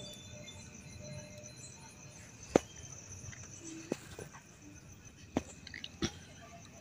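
Sharp clicks and taps of small metal tools and parts of a motorcycle starter motor being handled and set down in a socket-set case. There are four separate knocks, the loudest about two and a half seconds in.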